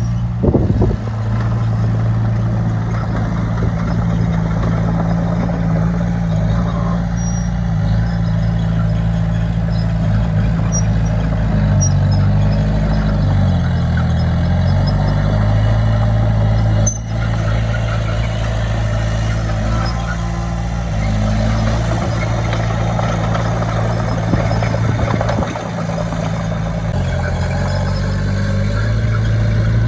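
Bulldozer's diesel engine running steadily under load, its pitch dipping and climbing back about twelve to fifteen seconds in.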